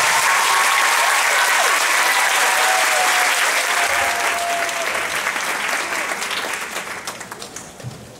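Theatre audience applauding, with a few cheers over it, right after a stage musical number ends. The applause dies away over the last few seconds.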